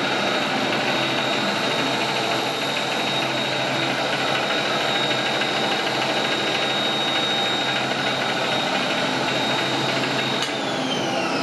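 Motenergy ME1004 DC electric motor of a converted John Deere 214 garden tractor, run on 36 volts, running steadily with a high whine. The drive belts and transmission turn with it because the clutch is not in and locked. About ten seconds in it is switched off and the whine falls steadily as the motor spins down.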